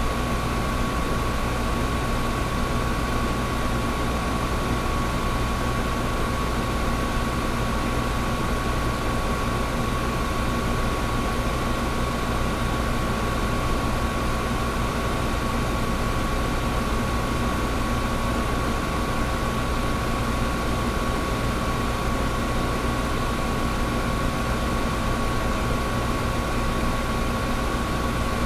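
Old window air conditioner running steadily: a constant blowing fan and a motor hum with a steady high tone over it.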